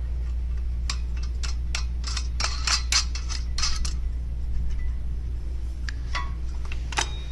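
Stainless steel nuts and lock washers clinking and rattling against bolts and aluminium hitch parts as they are spun on finger tight, in a run of quick clicks over about three seconds and a few more near the end, over a steady low hum.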